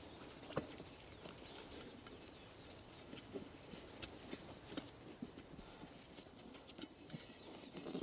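Faint scattered taps and small squeaks of hands working a rubber inner tube into a motorcycle tire.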